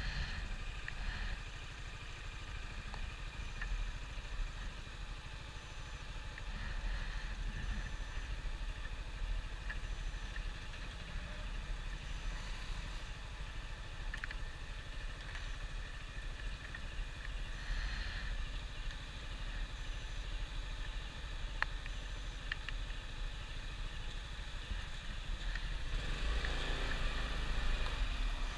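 Yamaha Xmax 300 scooter's single-cylinder engine running as it rolls slowly along a wet road. Near the end it picks up speed and the road noise grows louder.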